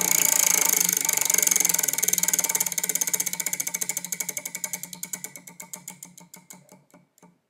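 Prize wheel spinning: rapid ticking that slows steadily and fades as the wheel coasts to a stop about seven seconds in.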